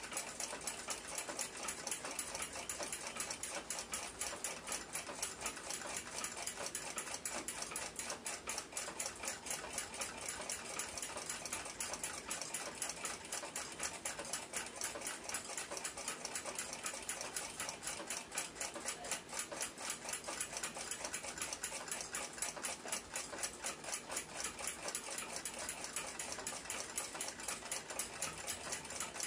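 A clock ticking rapidly and evenly, with no change in pace.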